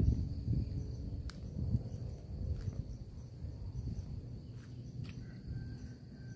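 Insects chirring steadily at a high pitch over an uneven low rumble of wind on the microphone, strongest in the first couple of seconds.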